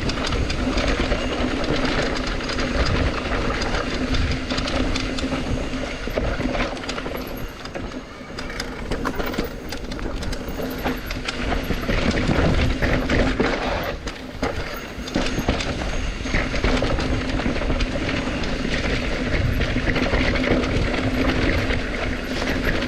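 Continuous rattling rumble of riding down a rough mountain trail: tyres and frame shaking over dirt and rocks, with a steady low hum underneath and wind on the microphone.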